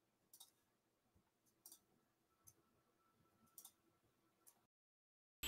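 Near silence, with a few faint, sharp clicks about a second apart. The sound cuts to dead silence shortly before the end, and music begins right at the end.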